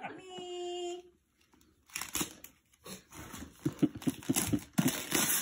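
Gift wrapping paper crinkling and rustling in irregular crackles as a present is handled and unwrapped, after a short steady tone in the first second.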